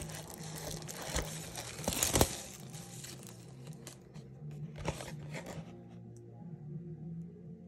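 Plastic wrapping on a trading card mega box crinkling and tearing as it is handled and opened, with sharp crackles over the first two seconds and a few more near the five-second mark, then quieter. Soft background music with low notes plays throughout.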